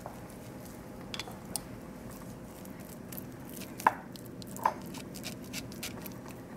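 Wooden spoon scraping and tapping as raw ground meat is spread on a tortilla in a skillet, with two sharper knocks that ring briefly, about four seconds in and again a second later, and light ticking after them.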